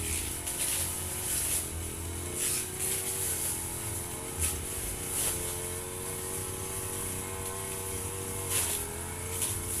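Firman FGB 528 brush cutter's engine running at high speed under load, its pitch dipping briefly a few times. Short, irregular swishes come as the line cuts through grass.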